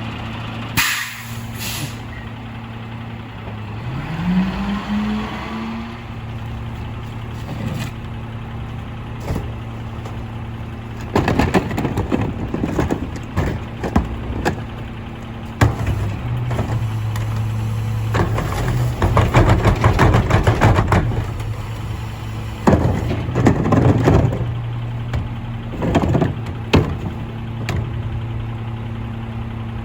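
Mack LR garbage truck with a McNeilus rear-loader body idling on its diesel engine, with a short air-brake hiss about a second in and the engine revving up a few seconds later. Through the second half come several spells of clattering and banging, some with the engine held at higher revs, as the rear loader's cart tippers and packer work.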